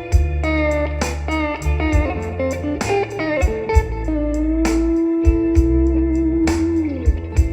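Music with electric guitar, bass and drums played through an Audio Center GT515 active PA speaker and 3118SUB subwoofer, picked up by microphone, with a heavy bass line. The guitar plays a run of quick notes, then holds one long note from about four seconds in that slides down near the end.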